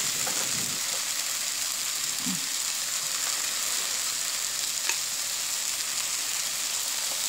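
Sliced onion, carrot and mushroom sizzling steadily in oil in a wok, with one faint click about five seconds in.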